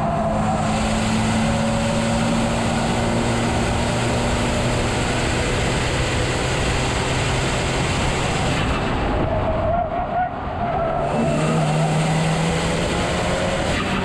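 Ford Focus RS's turbocharged 2.3-litre four-cylinder pulling at track speed, with heavy road and wind noise from a camera low on the front splitter. The engine note drops away briefly about ten seconds in, then pulls again.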